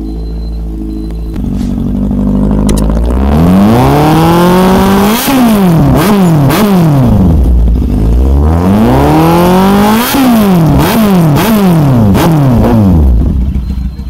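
Kawasaki Z800's inline-four engine through an SC Project carbon exhaust, idling, then revved hard twice. Each time the revs climb in a long rising pull and are followed by several quick throttle blips before the engine drops back down.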